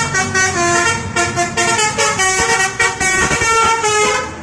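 Bus 'telolet' musical air horn playing a quick tune: several notes sound together and jump to new pitches every fraction of a second. The horn is loud and close, and stops just before the end.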